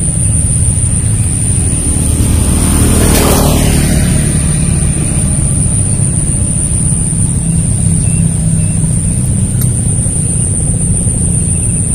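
A motor engine running steadily with a low hum, swelling briefly about three seconds in.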